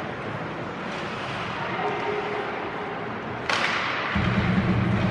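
Ice hockey game in a rink: steady arena noise from play on the ice, a sharp knock about three and a half seconds in, then a low rumble near the end.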